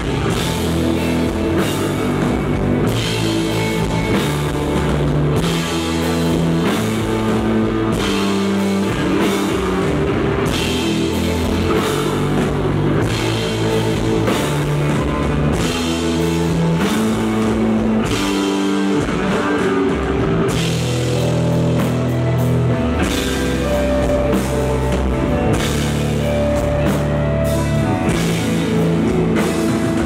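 A live rock band playing desert rock at a steady loud level: distorted electric guitars over a bass guitar holding long notes that change every second or two, with a drum kit.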